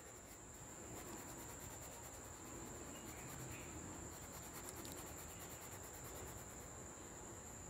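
Faint scratching of an oil pastel shading back and forth on paper, with a steady high-pitched whine behind it.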